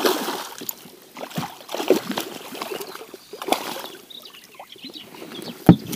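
Hooked zander thrashing at the water's surface beside the boat, making irregular splashes, with one sharp knock near the end.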